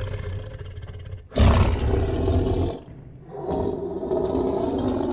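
A large animal calling twice with long, rough, deep calls, the second starting a little after halfway through.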